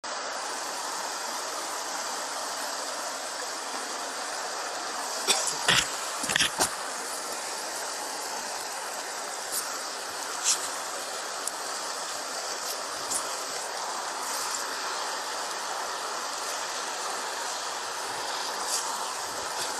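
Steady rush of fast-flowing floodwater, with a few short knocks and rustles from rope being handled, mostly about five to seven seconds in.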